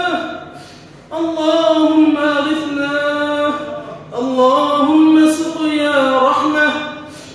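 A man's voice chanting an Arabic dua (supplication) in long, held melodic phrases. The phrases break briefly about a second in and again about four seconds in.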